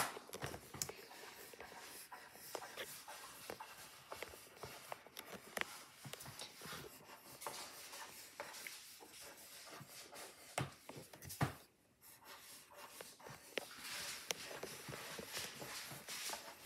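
Pencil scratching faintly on paper as wavy lines are drawn, with a few light taps and knocks against the table.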